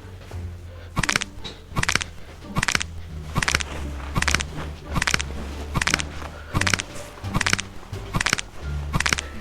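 Background music with a steady bass line and a sharp, noisy hit on every beat, about five hits every four seconds.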